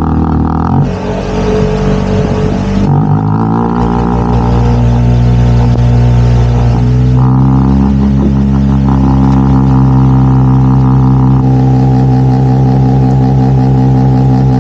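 Small boat's outboard motor running under way, picking up a little speed about three seconds in and then holding a steady pitch.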